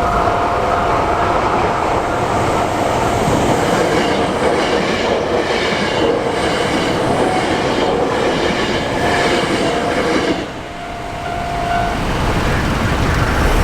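Hankyu Kyoto Line electric train passing over a level crossing, its wheels clattering over the rail joints, with the crossing's warning bell ringing steadily beneath. The train noise drops away briefly about ten seconds in, then builds again.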